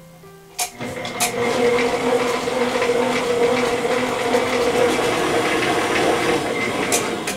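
Stand mixer switched on with a click about half a second in, its motor then running steadily as it beats butter and powdered sugar into buttercream frosting in the steel bowl. A second click comes near the end.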